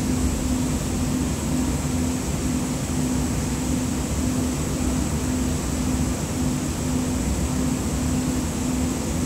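Interior noise of a Siemens S200 light-rail vehicle under way, heard inside the passenger cabin: a steady low rumble of the running gear with a low hum that comes and goes at a regular beat, and a faint high steady whine.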